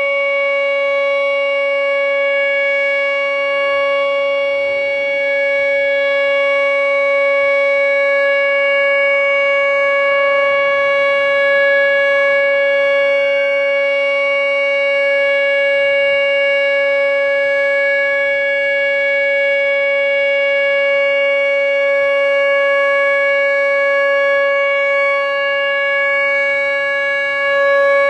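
Whelen WPS 2910 electronic outdoor warning siren sounding a steady alert tone for its monthly test: one loud held pitch with a stack of overtones, not rising or falling.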